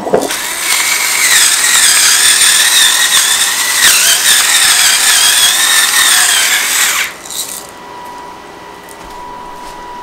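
Electric salt and pepper grinder running with a steady high whine for about six and a half seconds, with a brief catch about four seconds in.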